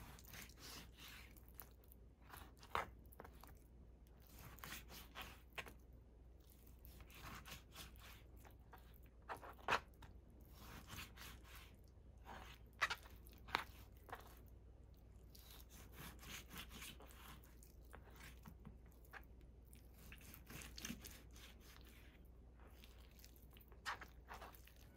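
Faint knife work on raw chicken thigh: the blade slicing through skin and meat with soft crunching, tearing sounds, and irregular sharp taps as the knife meets the cutting board.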